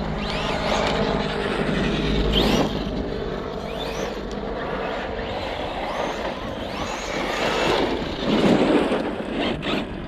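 Brushless electric motor of an Arrma Kraton EXB RC monster truck whining, its pitch rising and falling several times as the throttle is worked, over a rough rushing noise.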